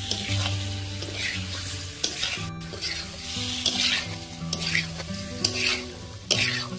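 Spatula stirring fried eggs and potato chunks in spiced oil in a kadhai, with repeated scraping strokes against the pan over a steady sizzle of frying.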